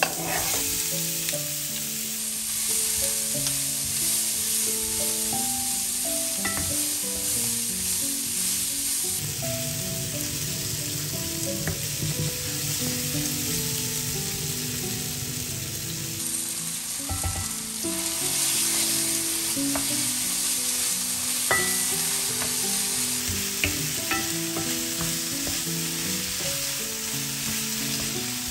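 Halved datterini tomatoes sizzling steadily in hot oil in a frying pan with onion and pepper, stirred by a wooden spoon with an occasional light scrape against the pan.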